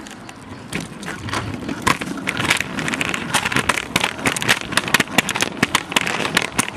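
Kick scooter rolling fast over a concrete sidewalk, with the camera riding on it: a steady rolling rumble and rattle, broken by many sharp clicks and knocks from the small hard wheels.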